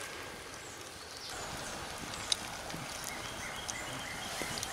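Pot of seasoned water boiling over a campfire with crawfish in it, stirred with a wooden spoon: a steady bubbling hiss, with a few sharp clicks.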